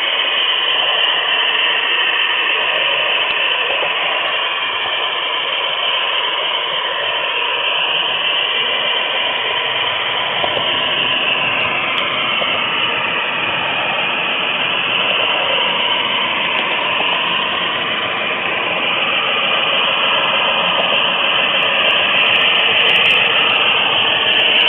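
HO scale model train rolling along its track, heard up close from a car in the train: a steady rattling hiss of metal wheels on the rails, with a whine that drifts up and down in pitch.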